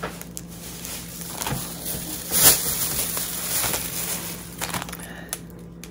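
Rustling and crinkling of a shopping bag and packaged items being rummaged through, in short irregular bursts, the loudest about halfway through.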